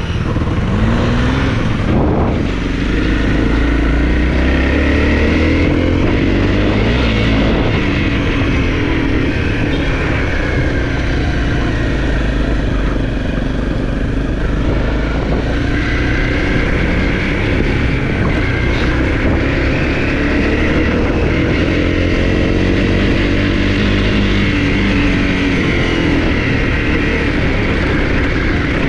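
Honda CRF250 dirt bike's single-cylinder four-stroke engine running under way, its revs rising and falling repeatedly.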